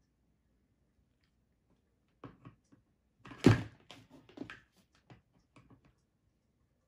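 Hot glue gun knocked against its stand and the table as it is lifted out and set back, with light taps of handling; the loudest is a single thunk about halfway through, with smaller knocks before and after.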